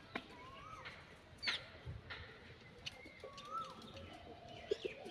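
Birds in a pigeon and dove aviary calling: scattered sharp chirps and a call that rises then falls, heard twice, with lower calls from the pigeons.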